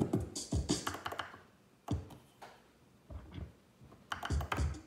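A music track with a steady electronic beat playing through the DJ controller's deck; about a second in it stops, leaving a few single beats, then starts again near the end, as the deck's play and cue buttons are worked.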